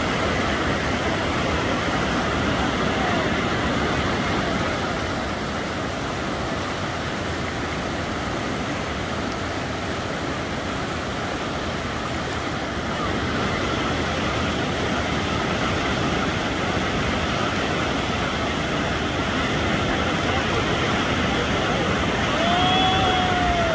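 Steady rushing roar of a big river rapid, whitewater pouring over a large breaking standing wave. Near the end a brief high, rising-then-falling call cuts through.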